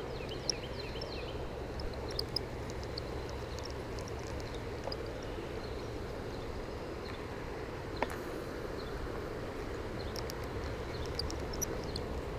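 Steady low outdoor rumble with scattered faint high chirps, and a single sharp click about eight seconds in.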